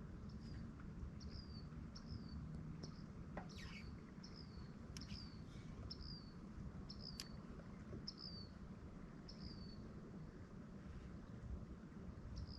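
A bird repeating the same short, high, falling chirp about once every second, stopping near the end, over a low steady rumble. A few faint clicks fall around the middle.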